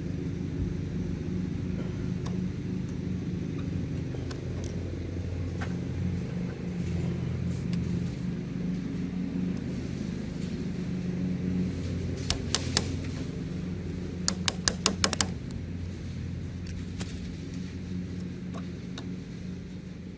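A steady low machine hum, with sharp metallic taps from securing a lawnmower wheel on its axle: about three taps about twelve seconds in, then a quick run of about six a couple of seconds later.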